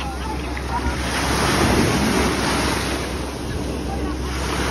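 Small waves breaking and washing up over shallow sand in a steady wash, with wind buffeting the microphone.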